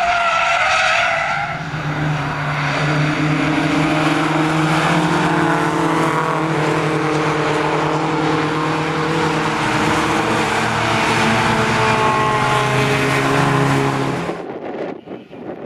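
Tyres squeal as a hatchback spins at a track corner. Then the engines of several racing saloon cars run past steadily, and the sound cuts off suddenly near the end.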